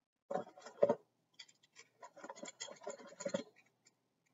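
Small plastic toys being handled by hand: irregular scratchy clicks and rattles of plastic against plastic, in two bunches with a short pause between.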